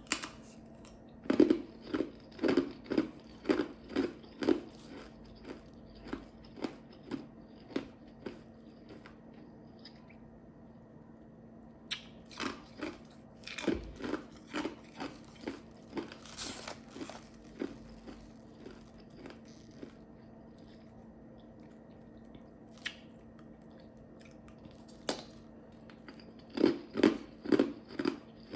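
Ice chips being bitten and chewed, close to the microphone: a run of crisp crunches at roughly two a second, loudest near the start and again near the end, with a short pause about ten seconds in.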